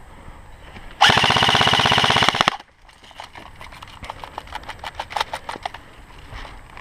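ICS CXP 16L airsoft electric rifle fired on full auto in one rapid burst of about a second and a half, very loud and close, about a second in. Scattered fainter single airsoft shots follow.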